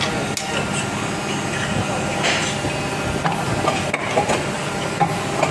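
Toy car part making machine running: a steady hum and mechanical noise with scattered sharp clicks and knocks.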